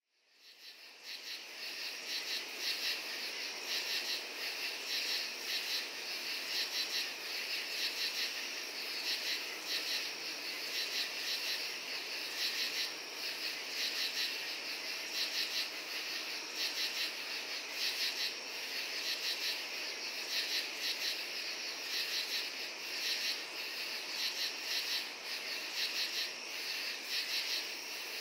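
Crickets and katydids calling together in a dense night chorus: a steady, high chirring with a rhythmic pulsing running through it, fading in over the first second.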